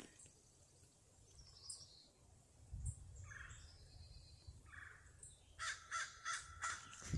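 Crow cawing overhead: two single caws, then a quick run of about six caws near the end.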